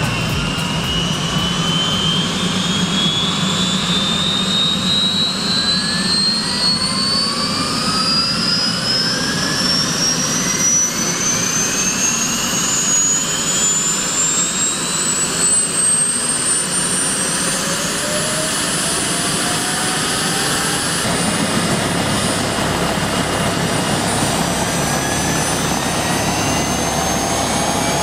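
Helicopter turbine engine spooling up, a whine rising steadily in pitch over most of the time and then levelling off, over a steady low engine rumble.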